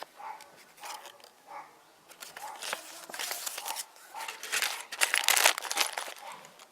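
Plastic packaging crinkling and rustling as it is handled. The sound gets busier and louder from about two seconds in and is loudest about five seconds in.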